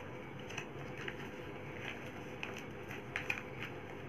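Small plastic packet of baking soda being handled and opened: a scattering of soft crinkles and clicks over a steady room hiss with a faint hum.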